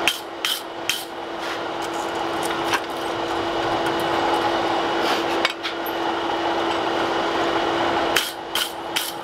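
Steel hand tools being handled on a steel anvil: a wire brush scrubs across the anvil face and hammer and tools knock and clink against it, several times at the start, twice near the middle and in a quick cluster near the end, over a steady hum.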